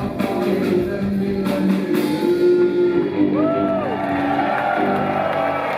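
Live rock band playing the closing bars of a song. The drums stop about two seconds in, leaving held notes that swoop up and down in pitch.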